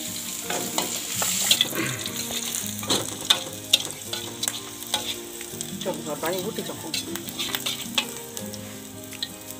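Chopped shallots, garlic and chillies sizzling in hot oil in a steel wok, stirred with a metal spatula that scrapes and clinks against the pan many times.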